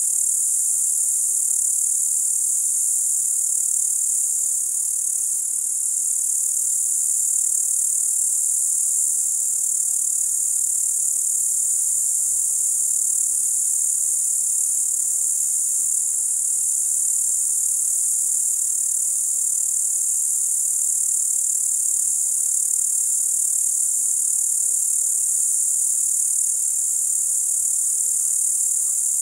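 Crickets singing in a steady, unbroken high-pitched chorus.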